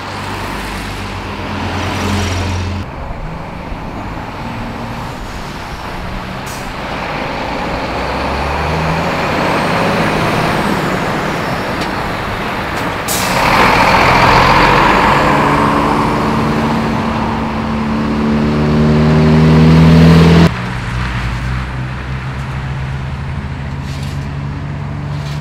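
Iveco heavy diesel truck towing a hovercraft on a low-loader, its engine running as it drives by with other traffic. There is a sudden loud rush of noise about halfway through. Later the engine pitch climbs as the truck pulls away, and the sound cuts off abruptly.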